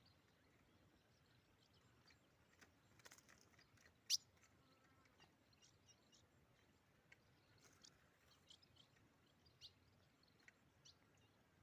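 Faint, scattered short chip notes from caged ultramarine grosbeaks (azulão), with small clicks and one sharper click about four seconds in.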